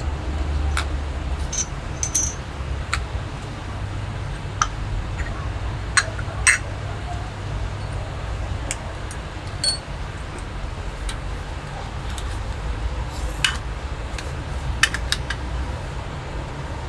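Scattered light metallic clicks and clinks, a dozen or so at uneven intervals, as the parts of a leaking faucet are taken apart and handled. A steady low rumble lies underneath.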